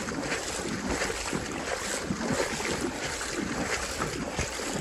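Water sloshing and splashing around legs wading through shallow lake water below knee depth, with wind buffeting the microphone.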